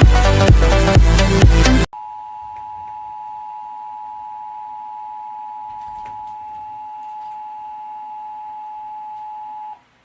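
Music with a strong beat cuts off abruptly about two seconds in. It is replaced by the Emergency Alert System attention signal: a steady two-tone electronic tone, quieter than the music, held for about eight seconds and then stopping.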